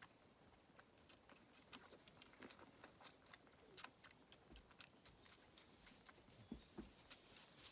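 Faint, irregular clicking and smacking of two lambs sucking milk from bottle teats. A few soft low thumps come in the second half.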